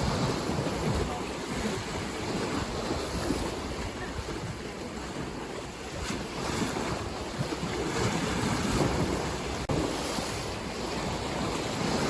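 Ocean waves breaking and washing in as a steady rush of surf that swells and ebbs every few seconds.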